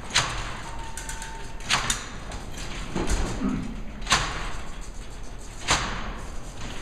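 Babbage's Difference Engine No. 2, a hand-cranked bronze-and-iron calculating machine, running as its crank is turned: four sharp metallic clacks come at intervals of about a second and a half to two and a half seconds, with quieter mechanical rattling in between.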